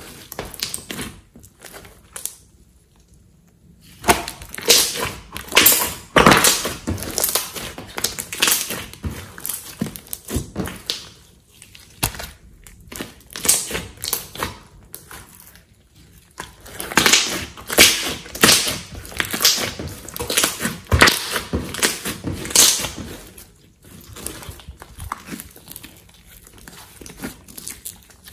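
Hands kneading, pressing and stretching a large lump of thick slime, making sticky squishing and quick crackling pops. The crackling comes in bursts of several seconds, with quieter stretches between.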